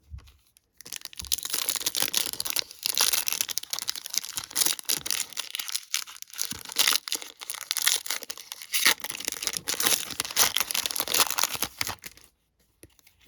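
Wrapper of a 2022 Topps Gallery baseball card pack crinkling and tearing as it is ripped open by hand. A dense run of crackles starts about a second in and stops about a second before the end.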